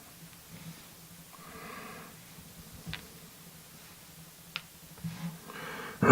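A man breathing through his nose, with a soft exhale about a second and a half in and another breath near the end, and two faint small clicks in between; a loud throat clear starts at the very end.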